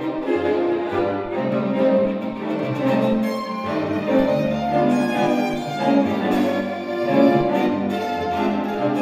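Chamber string orchestra playing long held notes, with cellos sustaining low notes beneath the violins' melody.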